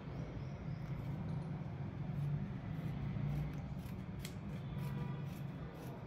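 Scissors making short, crisp snips while cutting a strip of white material, over a steady low hum.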